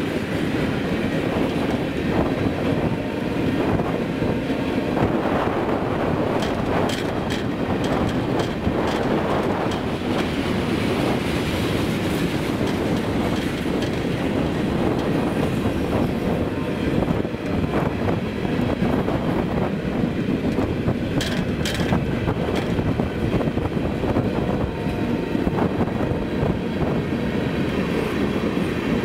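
Freight train cars (covered hoppers and tank cars) rolling past close by: a steady rumble of steel wheels on rail, clacking over the rail joints, with a few sharp metallic clicks about a quarter of the way in and again past the middle.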